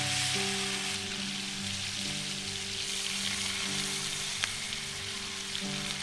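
Fish frying in oil in a black frying pan, a steady sizzle, with background music of held notes over it.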